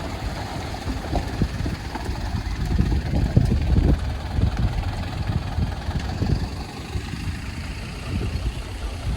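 Heavy truck's diesel engine running at low revs, a low uneven rumble.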